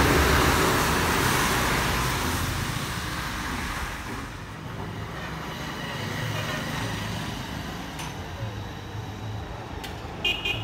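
A passenger bus passing close by, its engine and road noise loud at first and fading over the first few seconds, then quieter road traffic with a low engine hum as the bus approaches. Near the end a horn gives a few short toots.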